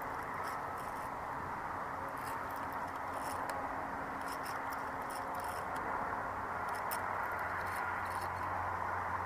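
Fishing reel being cranked to wind in line, with faint irregular clicks over a steady hiss.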